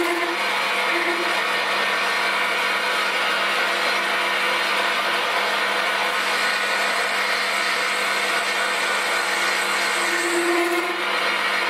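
Weiss WMP280V-F metal lathe running at about 487 rpm, its motor and drive giving a steady whine. A slightly stronger hum comes in briefly at the start and again near the end, as the tool is fed in by hand.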